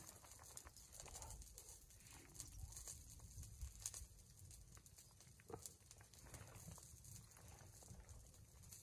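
Near silence: faint scattered clicks and handling noises over a light steady hiss.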